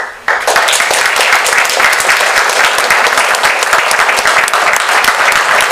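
Audience applauding, many hands clapping, starting suddenly and holding steady.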